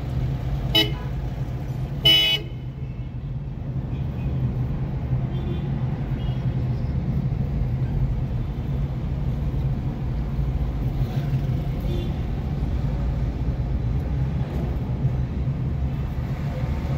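Steady low drone of a car driving, engine and road noise heard from inside the cabin. A car horn toots twice briefly, about one and two seconds in, the second toot louder.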